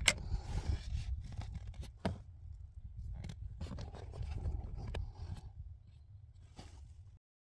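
Light clicks and scrapes of a wire jumper and fingers working at the plastic pins of a car's OBD-II diagnostic connector, over the dull rumble of a handheld phone being moved close by. It quietens after about five and a half seconds and cuts off just before the end.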